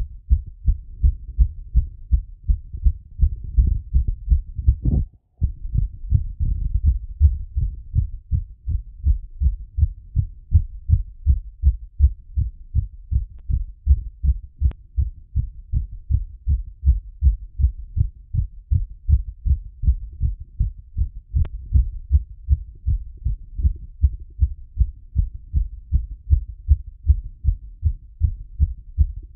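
A human heartbeat heard through a stethoscope: a quick, even run of low thuds, about two a second, as after exercise. About five seconds in there is a brief scraping rub and the beat drops out for a moment before resuming.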